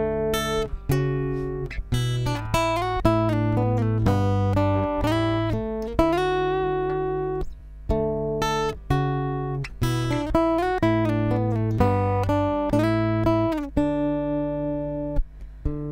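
A guitar plays a chord progression from a recording, with each chord struck and left to ring. The guitar track is running through a compressor. A steady low hum sits underneath.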